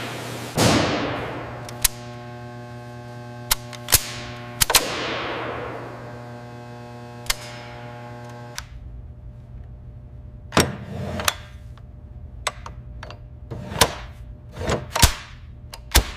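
Sharp metallic clicks and clacks of gun parts being handled and worked, over a steady low hum. Two falling whooshes come in the first five seconds, and a sustained chord of tones rings until about halfway through.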